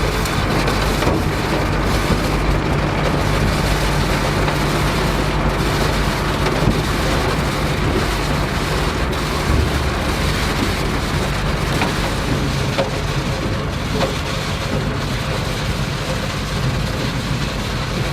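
Farm machinery running steadily in the field: a low engine drone under a dense, even rumbling noise.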